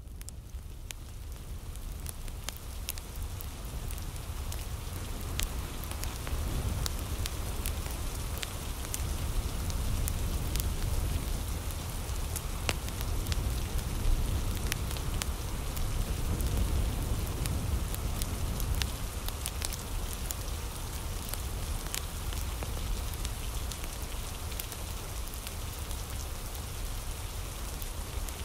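Steady rain with a low rumble underneath and scattered sharp crackles of a wood fire, growing louder over the first several seconds, then holding steady.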